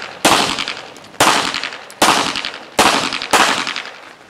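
Five pistol shots fired at uneven intervals of about half a second to a second, each with a long echoing tail.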